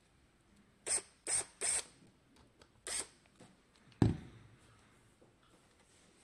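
Hand work on a mini PC's case and parts: four short scraping noises, three in quick succession about a second in and one more near three seconds, then a single solid knock about four seconds in.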